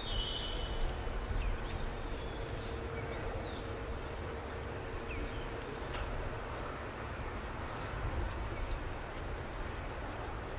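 Outdoor ambience: a steady low rumble of wind on the microphone, with scattered short bird chirps.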